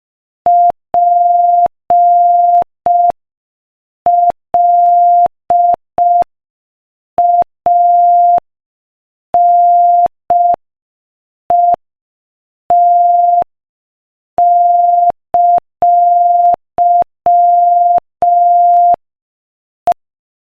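Morse code sent at 5 words per minute: a single steady mid-pitched beep keyed on and off in short dots and longer dashes, with silent gaps between letters and words and a faint click where each beep starts and stops.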